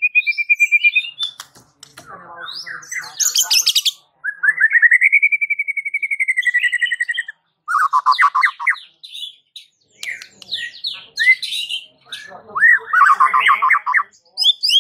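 White-rumped shama (murai batu) singing a varied song. It holds one long whistle for about three seconds, has bursts of fast buzzy rattling notes, and puts short chirps and squeaky phrases in between.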